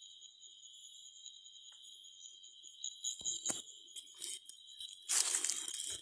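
Footsteps crunching through dry fallen leaves: a few light crunches about halfway through, then loud crunching near the end. A steady high-pitched whine goes on underneath.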